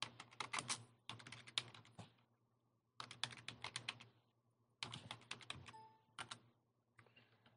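Typing on a computer keyboard: short runs of quick keystrokes in several bursts, separated by pauses of under a second.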